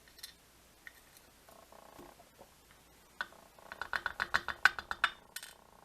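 A rapid run of small clicks and ticks, lasting about a second and a half, from tools handling the small metal pins and plug of a pin-tumbler lock being taken apart.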